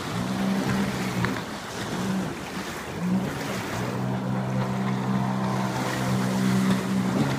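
Sea-Doo Spark 3up jet ski running at speed, its Rotax 900 ACE three-cylinder engine droning steadily. The engine note breaks off briefly about a second in and again between two and three seconds in, over the hiss of spray from the jet on the water.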